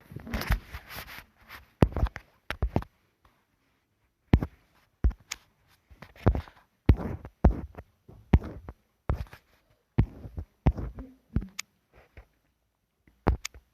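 Handling noise: a long run of irregular taps and knocks, some single and some in quick pairs or clusters, with short silences between them.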